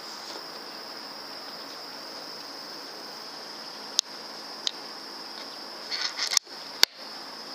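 A steady high-pitched insect chorus, with a few sharp clicks near the middle and a short cluster of clicks near the end.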